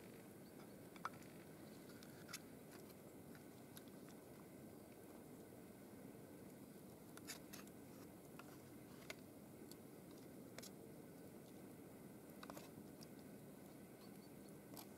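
Canned stewed meat being worked out of a tin with a knife and dropped into a frying pan: faint, scattered clicks of the blade against the tin and soft wet squishes, over a quiet steady background.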